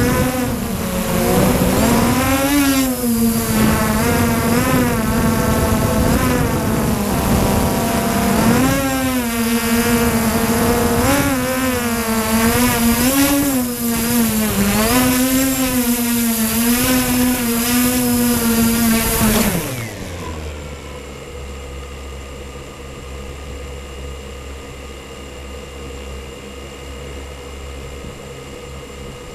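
MJX Bugs 3 quadcopter's brushless motors and propellers buzzing in flight, heard from a camera mounted on the drone; the pitch wavers up and down as the throttle changes. A little past two-thirds of the way through, the buzz drops sharply as the quad settles in the grass, leaving a fainter, steady hum.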